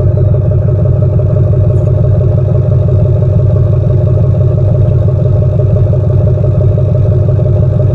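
2005 LLY Duramax 6.6 L V8 turbodiesel running at a steady high idle while it warms up after a cold start, heard out of its bed-mounted exhaust stack.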